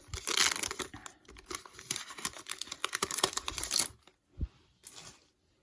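Wrapper of a 2022 Topps Chrome baseball card pack being torn open and crinkled for about four seconds, then it goes much quieter with two short taps.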